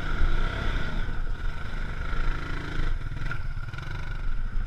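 ATV engine running at low revs, its note stepping up and down a few times, with a steady high whine over it.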